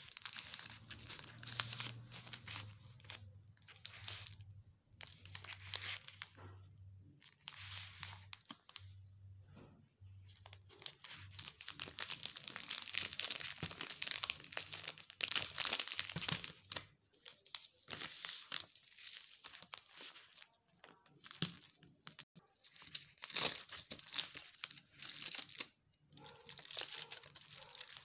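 Crinkling and tearing of a chocolate bar wrapper being handled and opened, in irregular bursts with short pauses between them. Near the end the bar's inner gold foil wrap is being peeled back.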